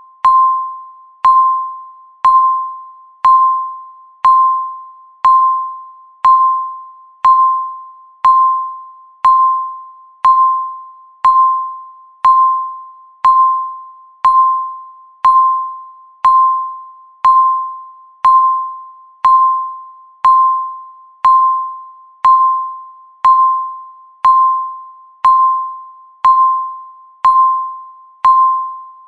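Countdown timer beeping once every second: a single electronic tone at each tick, starting sharply and fading away before the next.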